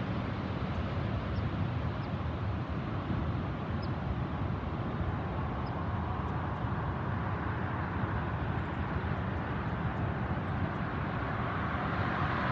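Steady roadside rumble of highway traffic, with a car approaching and getting louder near the end.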